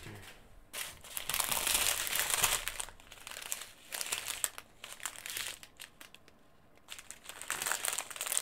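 Small plastic bags of diamond painting drills crinkling as a strip of them is handled and moved, loudest in the first few seconds, dying down briefly before picking up again near the end.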